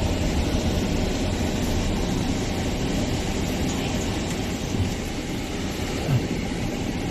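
Steady low rumble of a car's engine and tyres, heard from inside the cabin as it drives.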